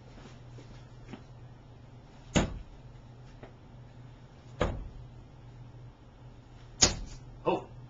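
Three darts thudding into a dartboard one after another, about two seconds apart, each a single sharp thud. A shorter, softer sound follows just after the third.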